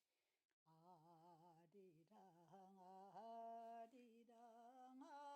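Near silence, with a very faint singing voice wavering in pitch in the background.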